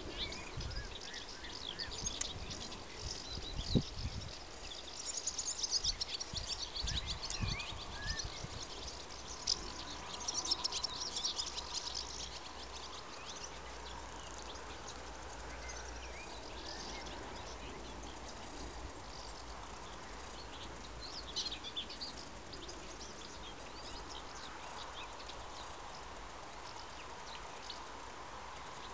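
Swallows twittering in flight: many short, high chirps, thick for the first dozen seconds, then thinning, with another flurry about twenty-one seconds in. Under them is a steady low rumble, and a single low thump comes about four seconds in.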